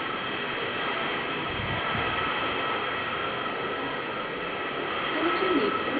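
Steady hiss with faint high whines running through it, a low bump a little under two seconds in, and a short sliding sound near the end.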